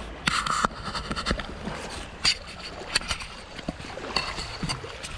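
Clicks and clatter of fishing tackle being handled, loudest in a short rattle about half a second in, then scattered single clicks, over a soft steady wash of small waves.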